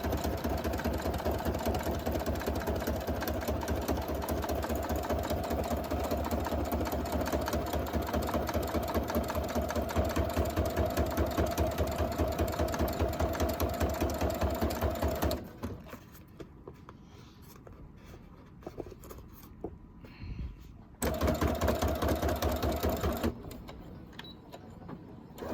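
Sewing machine stitching through faux leather at a fast, even pace. It stops about fifteen seconds in, leaving a few faint clicks, then runs again briefly in a short burst and restarts near the end.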